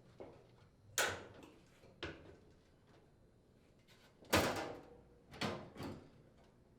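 Clunks and knocks of a dryer's front bulkhead being fitted onto the drum and hooked onto the cabinet tabs: five separate knocks, the loudest about four seconds in.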